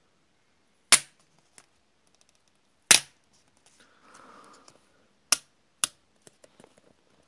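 Adhesive tape being peeled off a laptop's flat keyboard ribbon cable: four sharp snaps, the last two close together, with a brief soft rasp of tape between them.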